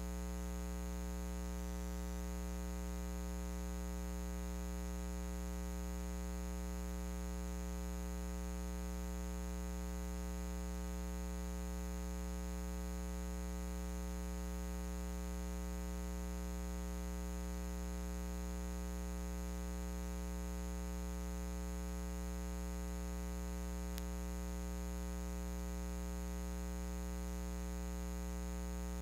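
Steady electrical mains hum with a dense stack of overtones and a faint hiss underneath, unchanging throughout.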